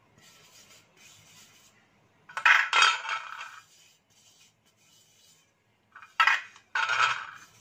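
Aluminium idli plates clinking and clattering against each other as they are handled and stacked. The clatter comes in a loud cluster about two and a half seconds in and twice more near the end, with faint scraping between.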